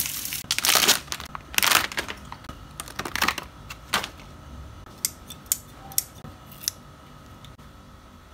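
Close handling noises from hands working a plastic toy figure: a few rough rustling scrapes, then a quick run of sharp clicks.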